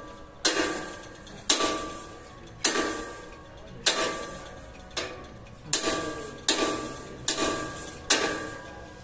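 Steel shock table being struck over and over, about ten heavy metal clangs each ringing out and dying away, roughly one a second and coming a little faster near the end.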